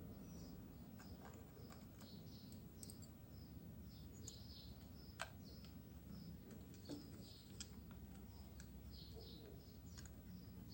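Faint small birds chirping over and over in the background, with a few sharp light clicks, the loudest about five seconds in.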